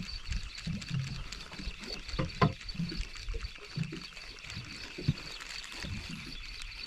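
Water lapping and slapping against a fishing boat's hull, with scattered irregular knocks and a faint steady high tone.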